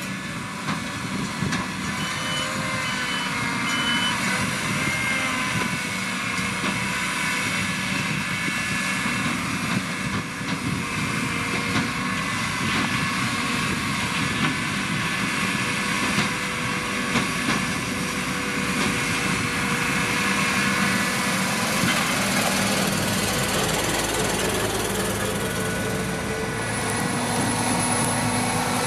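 Sugar beet harvesters running steadily, a heavy diesel drone with several held whining tones from the machinery. Three short high beeps sound about two seconds in.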